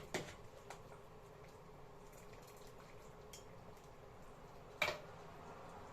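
Faint kitchen handling sounds: scattered small clicks and one sharper knock about five seconds in, over a quiet steady background.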